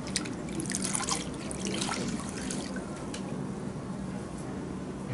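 A washcloth dipped into a plastic basin of water and lifted out, water splashing and trickling back into the basin for the first couple of seconds, then a few drips.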